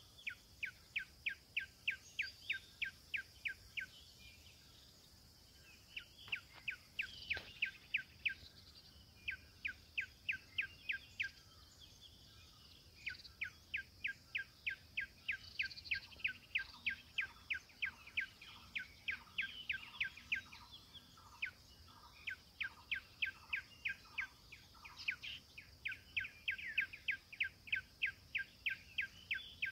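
A bird calling in a fast series of short, sharp notes, about three to four a second, in runs of several seconds with brief pauses, over a steady high-pitched insect hum.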